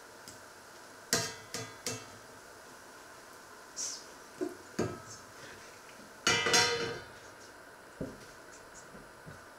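Metal knife blade knocking and scraping against a frying pan as a pancake is worked loose, in a few sharp ringing knocks. About six seconds in comes a longer, louder metallic clatter as a stainless steel lid goes onto the pan.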